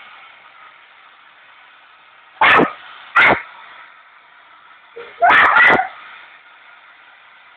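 Dog barking at a hairdryer in four short, sharp barks: two about two-thirds of a second apart, then a quick pair a couple of seconds later.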